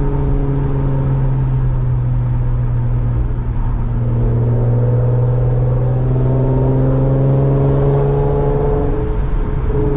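Infiniti Q50's V6 engine and loud aftermarket exhaust droning steadily while cruising, heard from inside the cabin; the pitch creeps up slightly about halfway through. Overly loud.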